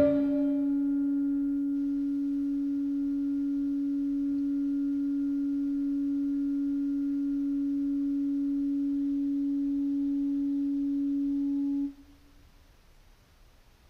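A single sustained pure tone, the last held note of the background ambient music, steady for about twelve seconds and then cut off suddenly.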